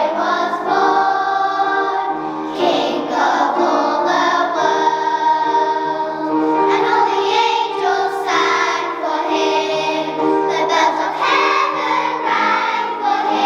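Children's choir singing a sustained, slow piece with held notes.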